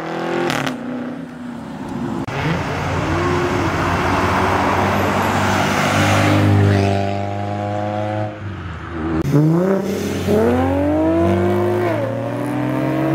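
Cars driving past one after another under hard acceleration, engines and exhausts loud. About nine seconds in, one engine revs up sharply, its pitch climbing and dropping back twice as it shifts up through the gears.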